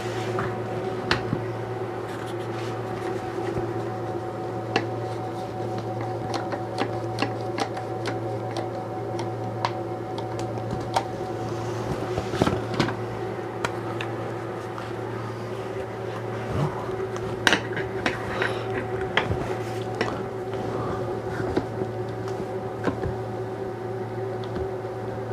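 Plastic one-handed squeeze bar clamps being picked up, set and ratcheted tight on a glued box: scattered clicks and clacks, some in quick runs, over a steady machine hum in the background.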